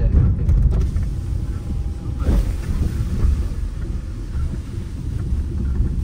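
A Tata Altroz driving over a rough, potholed dirt track, heard from inside the cabin: a steady low rumble of tyres and engine, with a few sharp knocks about half a second in.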